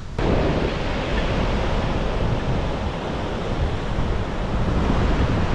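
Steady wash of ocean surf, with wind buffeting the microphone, cutting in abruptly at the start.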